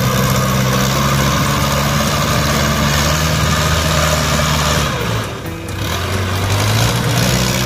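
Heavy diesel farm machine's engine revving up and pulling steadily under load as it drives down onto an iron barge. It eases off and drops in pitch about five seconds in, then revs up again near the end.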